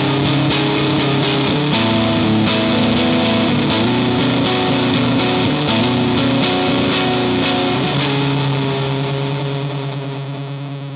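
Fender Thinline Jaguar electric guitar played through a Native Audio Pretty Bird Woman chorus/vibrato pedal and a Vox AC15 amp, with a run of chords to an even pulse of about two strokes a second. The last chord is held from about eight seconds in and fades away.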